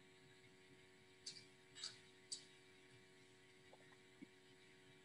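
Near silence with a steady electrical hum and three faint computer clicks about half a second apart, followed by a couple of fainter ticks.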